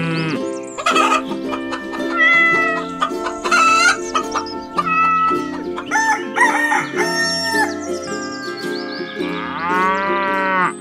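Chickens clucking and a rooster crowing, a run of separate calls, over steady background music.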